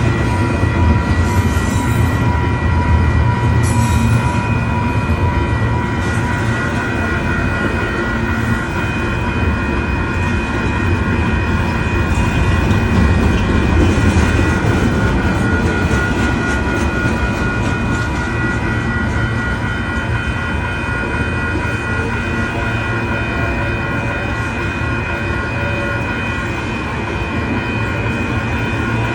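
A train rolling through a grade crossing with a steady low rumble, while the crossing bell rings on over it as a steady cluster of ringing tones.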